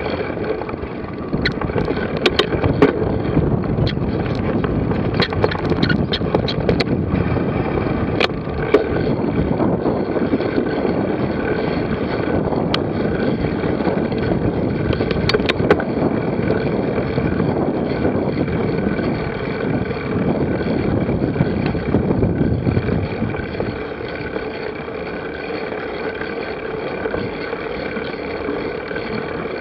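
Wind rushing over the microphone with a steady rolling rumble and scattered sharp rattles and clicks, like a moving ride; the low rumble eases about three quarters of the way through.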